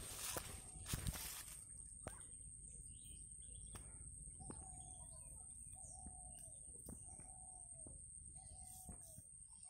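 A bird calling, one short, slightly falling note repeated about once a second from about halfway in, over a steady high-pitched whine. A rustle in the first second or two.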